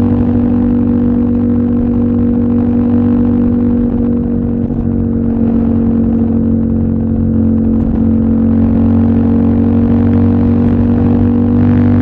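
CFMOTO 800NK's parallel-twin engine running at steady revs under way, a constant exhaust note that dips slightly in level around the middle.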